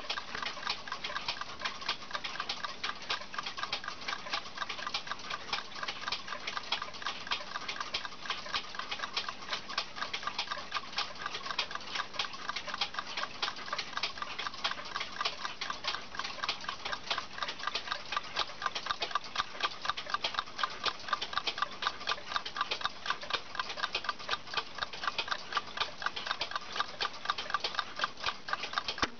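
Eastman Kodak Timer, a clockwork darkroom timer, running with fast, even ticking.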